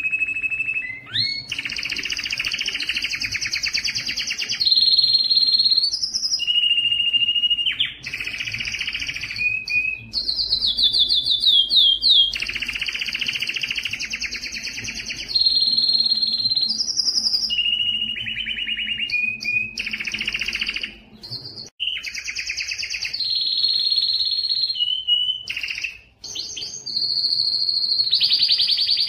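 Male canary singing in breeding condition: a long, nearly unbroken song of rapid trills. Each trill holds one pitch for a second or two before the bird jumps to a higher or lower one, with only a few short breaks.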